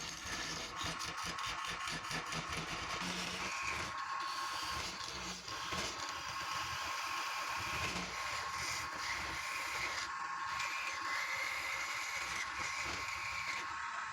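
Wood lathe running, with a turning tool cutting the spinning wood: a steady whine, and a higher cutting tone that comes and goes as the tool bites.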